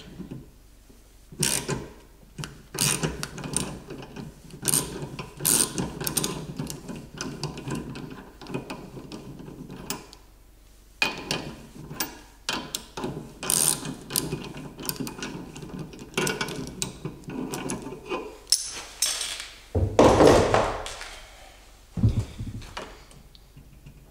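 Ratchet wrench clicking in bursts as it turns the forcing screw of a three-jaw gear puller, drawing a pressed-on crank off a paddle-wheel drive shaft. A louder scrape about twenty seconds in and a single knock just after.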